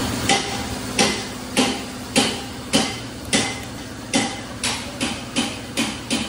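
About a dozen sharp metal taps in an even rhythm, roughly two a second, each with a brief ring. They come from testing a Toyota Avanza engine's pistons for play in freshly fitted cylinder liners.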